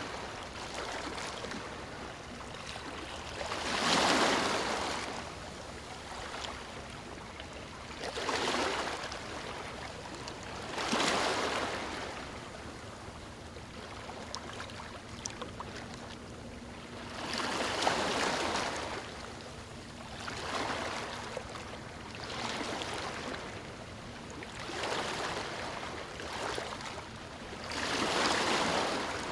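Ocean surf breaking on a beach: a steady wash with about seven waves swelling and falling away every few seconds, the loudest a few seconds in and near the end.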